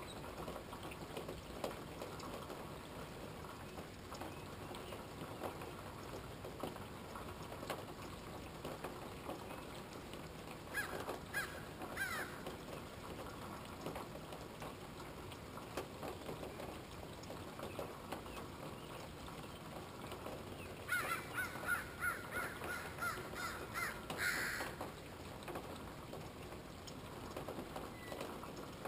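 Steady rain falling and pattering. About a third of the way in a bird calls briefly, and about two-thirds in it gives a run of quick, harsh repeated calls lasting a few seconds.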